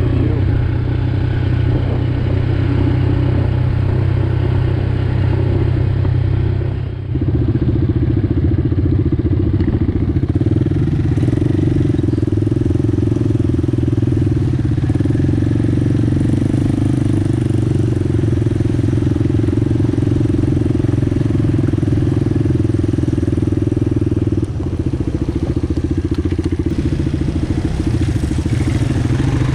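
Small single-cylinder ATV engine running steadily under way on a trail, with a brief dip in the engine sound about seven seconds in and a slightly lower level for the last few seconds.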